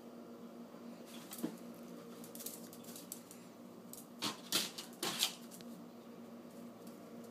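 A small Pomeranian-Chihuahua mix's claws clicking and scrabbling on a tiled floor as it chases a laser dot. There are a few scattered clicks at first, then a loud burst of scratching and scrabbling about four to five seconds in as it lunges and paws at the wall.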